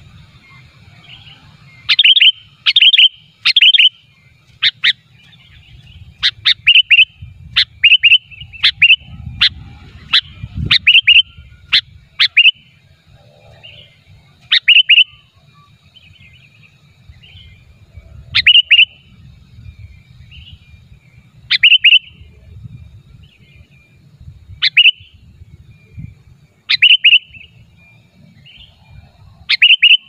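Sooty-headed bulbul (kutilang) calling loudly in short, sharp notes: a quick run of calls through the first half, then single calls every few seconds. This is the lively call used as a lure for wild bulbuls.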